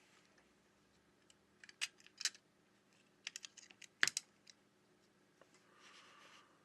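Irregular small, sharp clicks and taps in two quick clusters, the loudest a little after the middle, then a brief soft hiss near the end.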